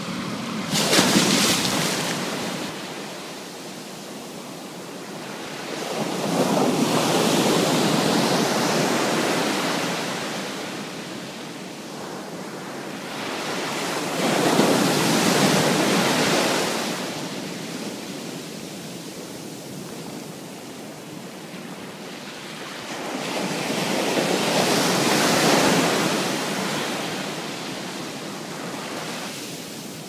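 Pacific surf: ocean waves breaking and washing up the shore, rising and falling in four surges about eight to nine seconds apart, the first a sharper splash about a second in.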